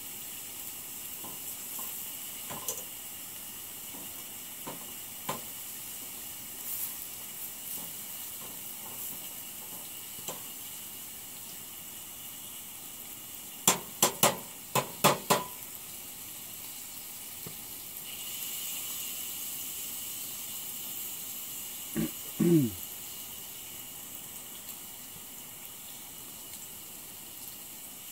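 Onions sizzling in a frying pan on a propane camp stove, over the steady hiss of the burner; the sizzle gets louder about two-thirds of the way in. About halfway through, a metal fork taps the pan about six times in quick succession, and a few seconds later there is a short low sound sliding down in pitch.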